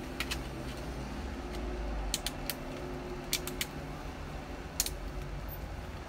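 Sharp plastic clicks in small groups as the Samsung Galaxy Note 3's snap-on back cover is handled and pressed onto the phone. A steady low rumble runs underneath.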